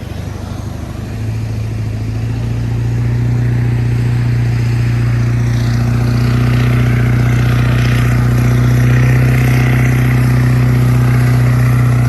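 2002 Ford Excursion's 7.3 Powerstroke V8 turbo-diesel working hard in soft beach sand. The revs climb over the first few seconds, then hold high and steady. The truck is fighting for traction on tires that aren't all that great.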